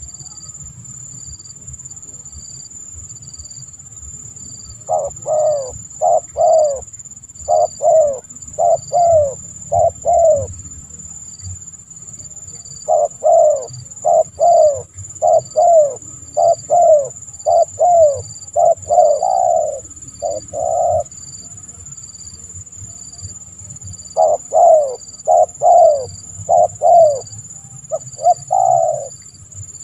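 Spotted dove cooing in three bouts of quick repeated coos, each note dropping slightly in pitch. A steady high insect trill runs behind it.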